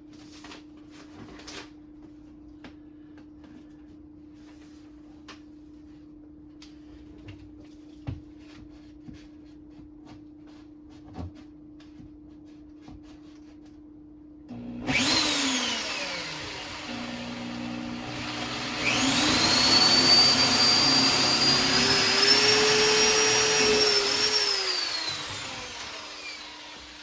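Power drill boring a mounting-bolt hole into a cabinet. The motor starts about halfway through, speeds up to a high whine that holds for about five seconds, then winds down and stops. Before it there are only a few faint handling clicks over a low steady hum.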